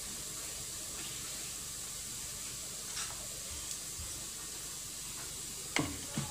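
Chopped garlic sizzling gently in hot cooking oil, a steady soft hiss with a few faint ticks, and two brief knocks near the end.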